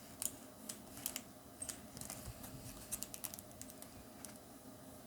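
Faint, irregular light clicks and taps from a sealed foil booster pack being handled and scanned with a handheld metal detector.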